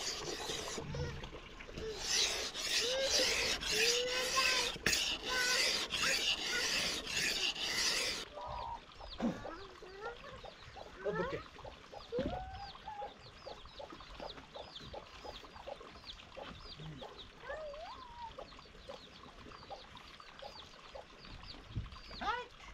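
About eight seconds of loud rubbing, rasping noise, then many birds chirping and calling.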